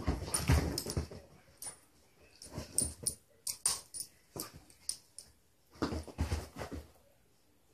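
Two beagles play-wrestling on a couch: dog play noises mixed with scuffling and thumps on the cushions. They come in irregular bursts, loudest in the first second and again about six seconds in.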